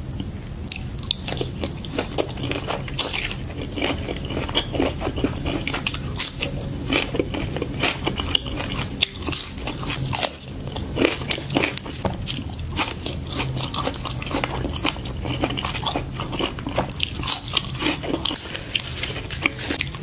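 Close-miked eating: crisp bites and crunching of raw vegetables such as cucumber and lettuce, with chewing of a spicy octopus salad, in many irregular crunches throughout.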